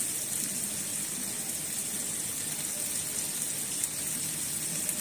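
Chopped capsicum and potato sizzling steadily in oil in a frying pan.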